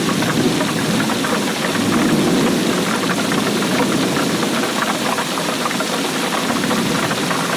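Steady heavy rainfall: a dense patter of drops over a low, even wash.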